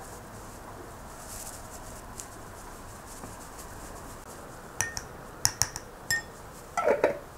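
A metal spoon clinks sharply four times against a ceramic bowl, then scrapes against it near the end, over a steady low hiss.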